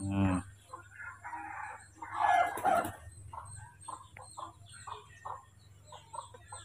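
Animal calls: a brief call at the start, a louder, longer call about two seconds in, then a run of short, quick calls.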